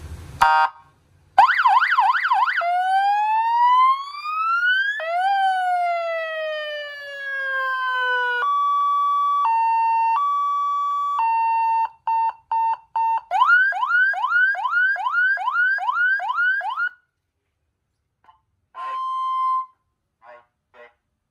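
A 12 V 100 W seven-tone electronic siren sounds loudly through its horn speaker, stepping from tone to tone: a fast yelp, a slow rising and then falling wail, a two-tone hi-lo, choppy beeps, and a run of quick rising chirps. Near the end it gives a short steady tone, then a voice comes through the speaker from the siren's microphone.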